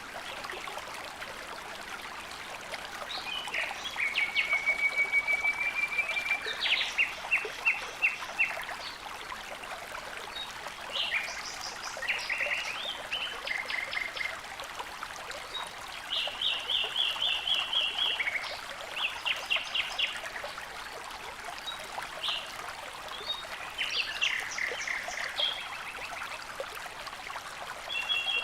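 Small birds singing over steadily running water: phrases of rapid trills and repeated chirps come every few seconds above a continuous trickling.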